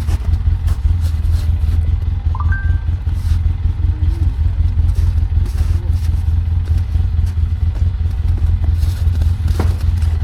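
Polaris side-by-side UTV engine idling steadily, with a few scattered clicks and clatter over it and a brief short squeak about two and a half seconds in.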